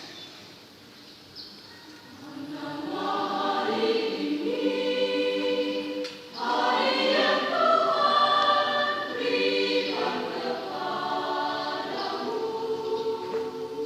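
Church choir singing, coming in about two seconds in after a quiet start; the sustained chords break off briefly around the middle and come back louder.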